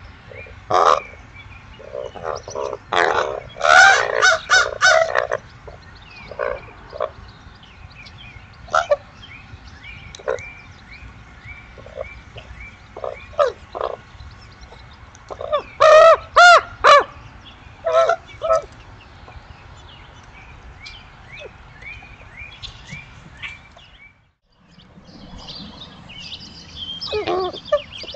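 Common ravens calling back and forth while feeding: short calls, several in quick runs, loudest about four seconds in and again around sixteen seconds in. Faint, steadily repeated chirps sound in the background.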